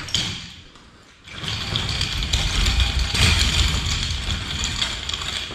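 A sharp thump, then about a second later a vehicle engine starts and runs steadily.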